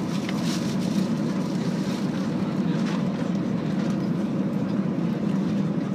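Steady low rumble inside the cabin of an Airbus A321 rolling along the runway just after landing, from the engines and the wheels on the tarmac. A few faint clicks and rattles sound over it.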